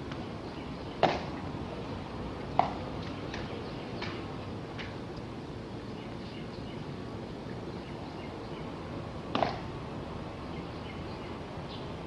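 Several short, sharp clicks at uneven intervals, a few seconds apart, over a steady outdoor background hiss.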